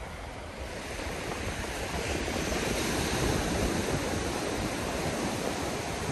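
Shallow sea water washing over wet sand at the water's edge, a steady hiss, with a little wind on the microphone.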